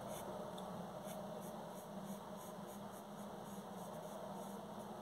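Pencil lead scratching lightly on paper as a long curved line is sketched, faint over a steady background hiss.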